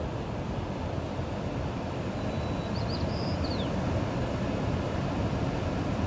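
Steady rumble of Pacific surf breaking on a wide sandy beach, mixed with wind on the microphone. A faint high chirp about three seconds in.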